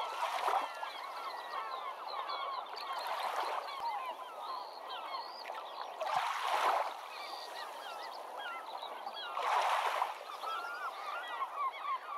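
Dense chorus of many birds calling, a constant mass of short honking and chirping calls, with a louder rushing noise swelling up about every three seconds.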